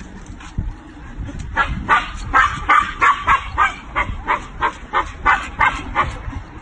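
Dog barking in a quick, steady run of about fifteen barks, starting about a second and a half in.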